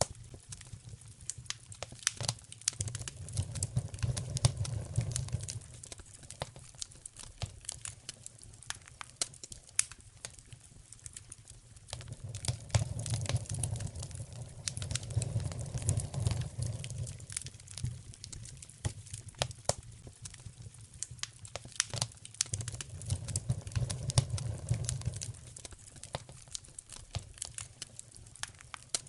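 Wood fire in a fireplace crackling, with dense sharp pops and snaps throughout. A low rumble swells and fades three times, each lasting a few seconds.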